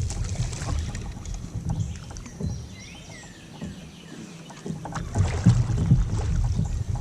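Kayak on a river: a rumble of wind and water noise on the camera microphone, easing off in the middle and picking up again about five seconds in. A few short bird chirps come through during the quieter stretch.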